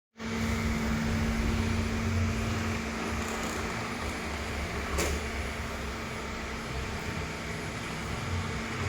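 Steady mechanical hum of a small motor with a constant tone, and a single click about five seconds in.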